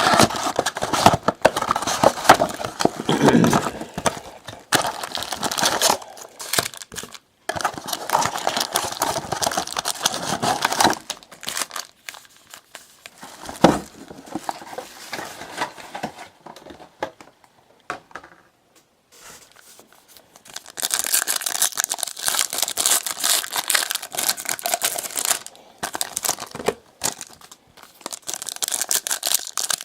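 Trading-card pack wrappers and box wrapping being torn open and crinkled by hand, in irregular bursts with a quieter stretch midway and a long dense crinkling near the end.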